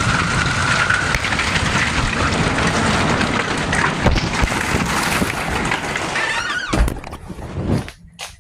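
Hail and heavy rain hitting a car, a dense clatter of many small impacts. There is a louder thump about seven seconds in, and the noise then drops away sharply.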